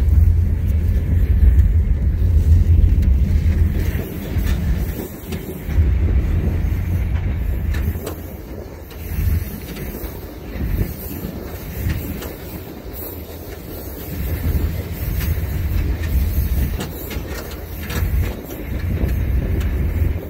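Mauritanian SNIM iron ore train rolling along, heard from on top of a loaded ore wagon: a heavy low rumble, loudest in the first few seconds, then swelling and fading.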